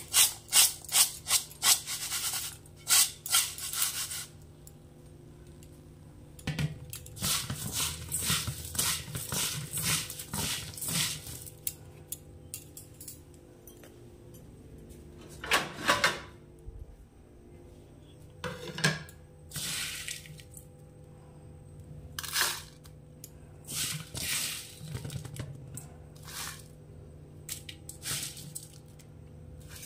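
Fried flattened rice (chire) and peanuts being tossed and stirred in a stainless-steel bowl: a fast rattling clatter for the first few seconds, then scattered short bursts of clatter and knocks.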